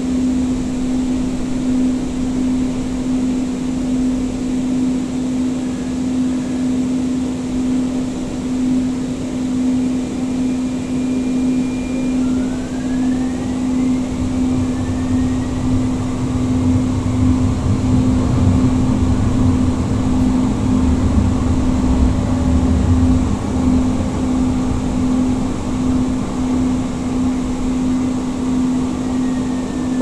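Siemens S200 light rail vehicle running, heard from inside the car: a steady hum throughout, the Siemens IGBT-VVVF traction motors' whine rising in pitch about twelve seconds in as the train gathers speed, and the low rumble of the wheels on the rails growing louder in the second half.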